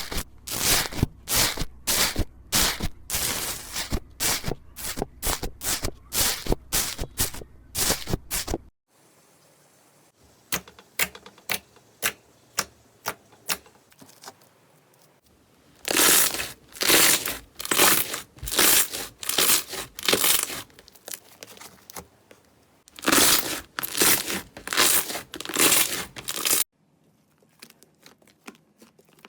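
Slime being worked by hand, giving rapid crackles and pops, about two or three a second. The sound changes abruptly a few times, with one stretch of quieter, sparser clicks, as one clip gives way to the next.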